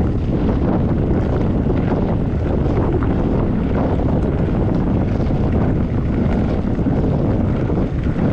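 Wind buffeting the microphone of a camera on a moving mountain bike: a steady, loud low rumble with faint crackle from the tyres on the trail.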